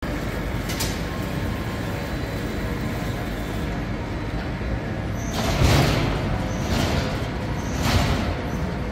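Canter sawing line's machinery running with a steady hum. From about five seconds in, a swelling-and-fading noise repeats roughly once a second.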